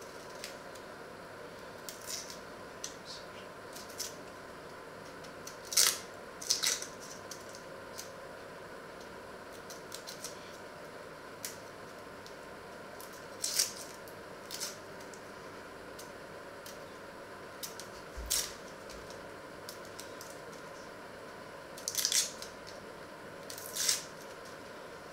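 Paring knife peeling dry onion skins by hand: short, scattered crackles and scrapes as the papery skin is cut and pulled off, the loudest about six seconds in and twice near the end, over a steady hum.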